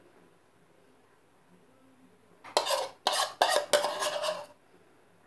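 A spoon scraping and knocking against the inside of a bowl, scooping out thick leftover sauce. It comes as a quick run of scrapes and clicks starting about halfway in and lasting about two seconds.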